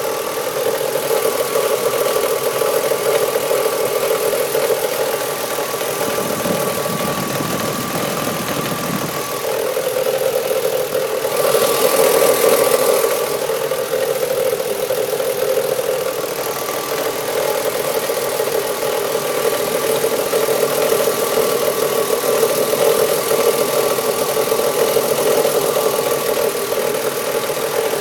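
BMW S50B30 straight-six engine running hot, with a constant noise that the owner hears coming from the direction of the VANOS variable valve timing unit. The sound is steady, with a brief louder rush about halfway through.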